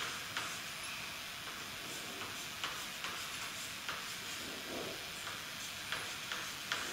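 Chalk on a chalkboard drawing dashed lines: a few short, irregularly spaced taps and scratches, one per dash, over a steady hiss.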